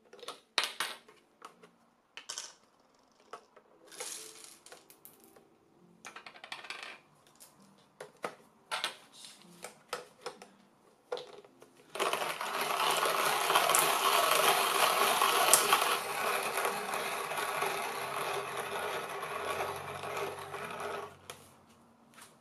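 Hand-cranked coffee grinder: about twelve seconds of scattered clicks and rattles as roasted beans and the grinder's parts are handled, then a steady crunching rasp for about nine seconds as the crank is turned and the beans are ground, stopping shortly before the end.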